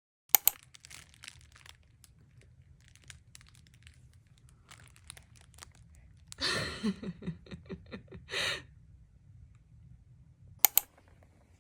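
Faint rustling and crinkling with sharp clicks just after the start and again near the end. About six seconds in there is a short pulsing voice-like sound, followed by a brief burst of noise.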